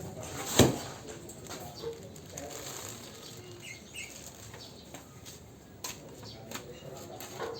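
Handling during an unboxing: a sharp knock about half a second in, then soft rustling with a few light clicks.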